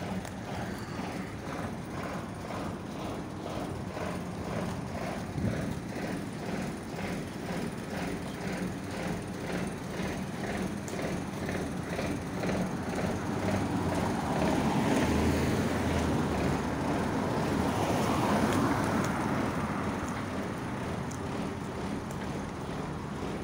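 Footsteps on asphalt, about two a second, with a car passing close by about midway through: its engine and tyre noise swell up, peak and fade away.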